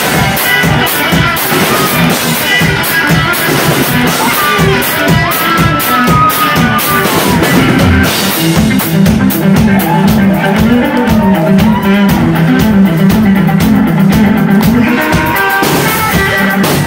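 Live rock played loud close to the stage: electric guitar over fast, steady drum-kit beats. A heavier low guitar riff comes in about halfway through.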